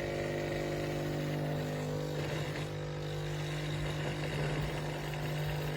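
Philips Baristina espresso machine running through its automatic grind-and-brew cycle, a steady mechanical hum. The tone changes slightly about two seconds in.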